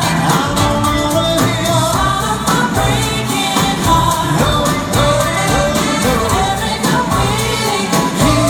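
Live pop music: a male lead singer over a full band.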